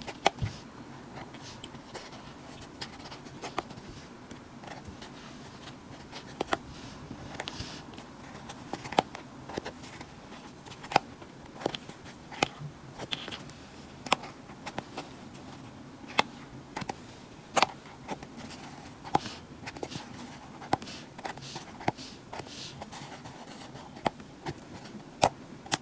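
Braiding cords being pulled out of and pressed into the slots of a kumihimo braiding disc, making irregular sharp clicks and light scratches about once a second, over a faint steady background noise.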